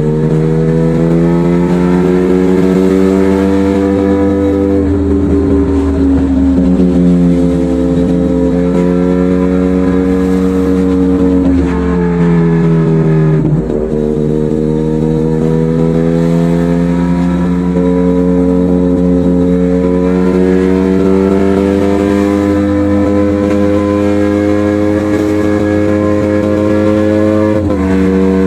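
Motorcycle engine and exhaust under way at a steady cruise, its pitch drifting slowly up and down, with a sharp drop and recovery about thirteen seconds in and another change in pitch near the end as the throttle or gear changes.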